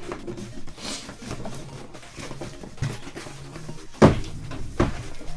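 Cardboard box being handled and worked open, with two sharp knocks near the end.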